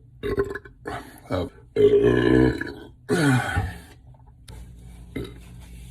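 A man belching, about five burps in quick succession; the longest and loudest comes about two seconds in, and the last one drops in pitch.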